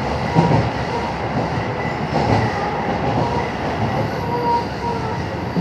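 A JR 221 series electric train running, heard from inside the car: a steady rumble of wheels on the rails with faint wheel squeals.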